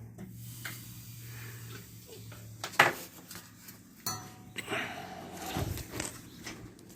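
A few sharp metallic clinks and knocks from tools and fittings being handled, the loudest about three seconds in, over a faint steady low hum.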